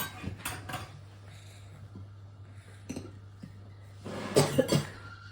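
A person coughing: two quick coughs close together about four seconds in, with a few brief small clicks earlier.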